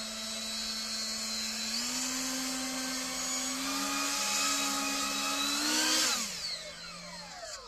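Ducted fans at the rotor tips of a model Focke-Wulf Triebflügel whining as the rotor runs, the pitch stepping up a few times as the throttle is raised. About six seconds in they are throttled off and the whine glides down as they wind down.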